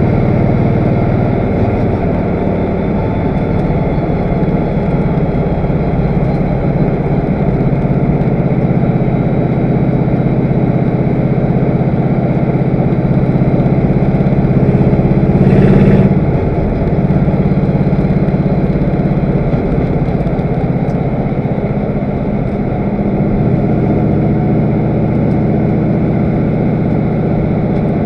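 Race car's V8 engine running hard at steady high revs while lapping the track, heard from inside the car with wind and road noise. About halfway through it swells briefly to its loudest, then the note dips for a moment and picks back up.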